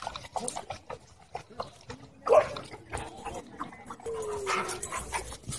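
Dogs vocalizing while they play: a sharp yelp about two seconds in, then a long whine that falls slightly in pitch near the end.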